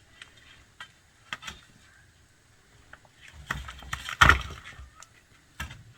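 Irregular sharp knocks and clatters of stones and tools during masonry work on a stone retaining wall, about half a dozen in all, the loudest and longest clatter about four seconds in.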